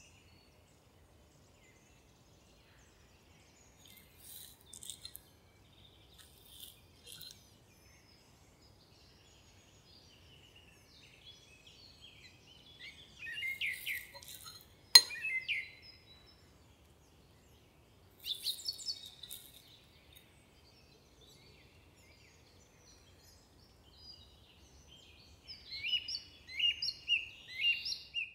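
Birds chirping in short, scattered bursts. About halfway through there is a single sharp clink of a metal spoon against a ceramic plate.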